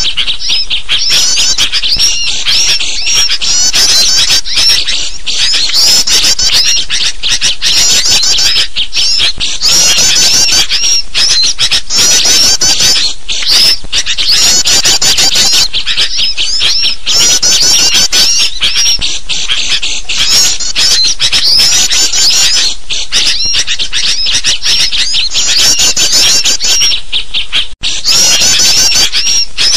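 Bird-lure recording of a loud, dense chorus of small birds chattering and chirping, combined with sooty-headed bulbul calls. The calls come in rapid repeated runs with no let-up, broken only by a momentary gap near the end.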